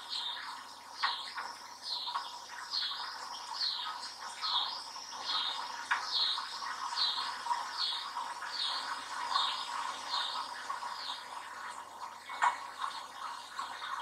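A bird calling over and over: a high note that dips and rises again, about every two-thirds of a second, stopping about eleven seconds in. A few soft knocks come in between.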